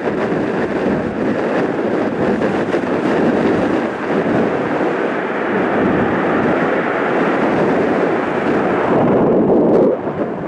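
Jet aircraft engine noise: a loud, steady, rumbling rush that cuts off abruptly near the end.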